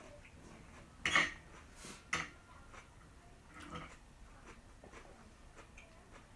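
Quiet eating sounds: a fork clicking and scraping against a plate a few times, the loudest about one and two seconds in.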